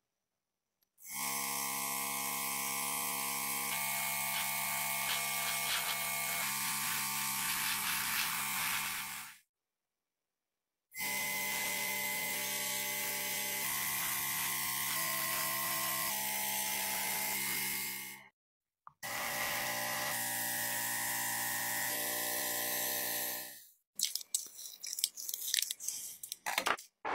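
Small airbrush compressor running with a steady hum under the hiss of air and paint spraying from the airbrush, in three long runs broken by short silences. Near the end, paper crinkling in irregular crackles as it is handled.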